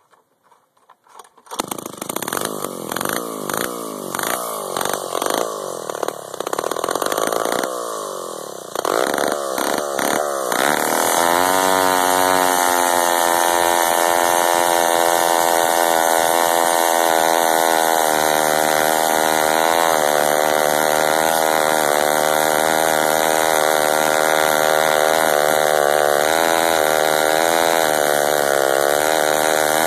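Ram Tools Deluxe RC-18D two-stroke chainsaw fires about a second and a half in and runs unevenly for several seconds. About ten seconds in it opens up to a steady high-revving run, its pitch sagging a little under load as its 3/4-pitch chain cuts into a maple log.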